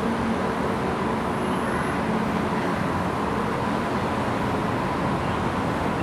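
Steady background noise: an even low hum and hiss with no distinct events.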